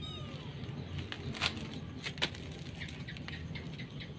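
Angora-Persian cross kittens scuffling and play-fighting on a hard floor: scattered light taps and scrapes of paws and bodies, with a faint short mew right at the start.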